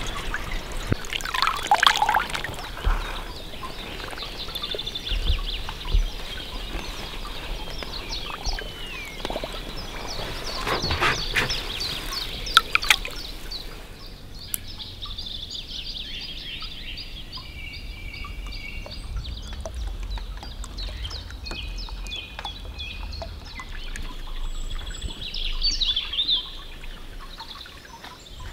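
Water dripping and trickling off a freshly landed common carp, with sharp splashes. About halfway through this gives way to a quieter stretch of birds calling.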